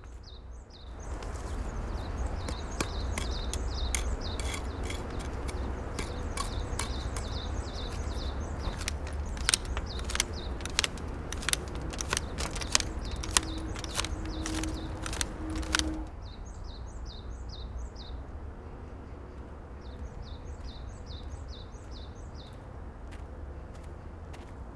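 Long-handled hedge shears snipping an evergreen shrub: a run of sharp blade clicks over a steady outdoor background, a small bird chirping repeatedly throughout. The snipping stops about two-thirds of the way through, leaving the quieter bird song.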